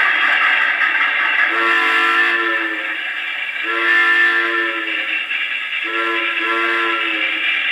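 Recorded train whistle blowing a chord of several steady tones in four blasts, two long, then a short and a long: the grade-crossing signal. It plays from an old sound-effects record on a wind-up acoustic phonograph, thin and narrow in range over a steady hiss.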